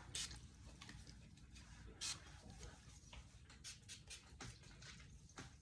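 Faint, scattered taps and clicks of tarot cards being handled, the sharpest about two seconds in.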